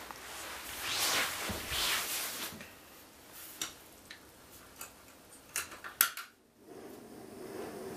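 Hands handling a portable gas canister stove, with small metal clicks, then a sharp loud click about six seconds in as the burner is lit, followed by the steady hiss of the gas flame.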